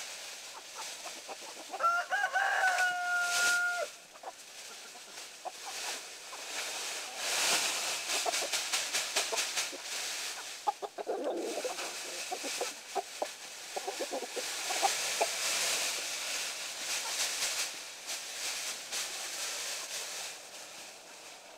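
A rooster crows once, a single held call about two seconds in, while chickens cluck. Then a large plastic bag crinkles and rustles for several seconds as it is shaken out and handled.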